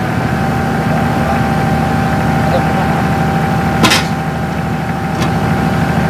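Backhoe's diesel engine running steadily, with a thin steady whine over it, a sharp knock about four seconds in and a fainter knock a second later.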